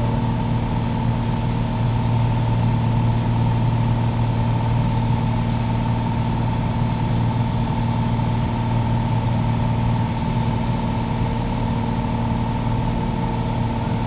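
Piper Saratoga's six-cylinder piston engine and propeller droning steadily in flight, heard from inside the cabin. A strong low hum sits under a fainter high whine.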